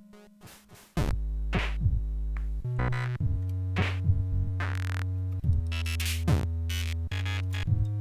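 Background music: an electronic Commodore 64 track with a drum-machine beat and steady synth bass. It drops almost to nothing at the start and comes back in about a second in.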